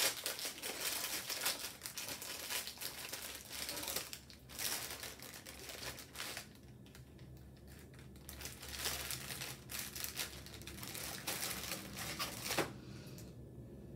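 A cookie package being opened by hand: a gold foil wrapper and its packaging crinkling and tearing in bursts, with a short lull midway and a sharp click shortly before it dies away near the end.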